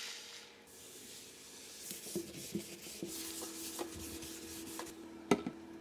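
Cloth towel rubbing and wiping a stainless steel sink around the drain, with a few light knocks and two sharp taps near the end.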